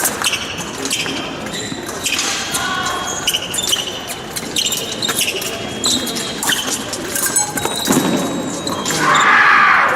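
Épée bout in a large hall: steel blades clinking and ringing against each other amid rapid foot stamps on the piste. Near the end comes a loud shout.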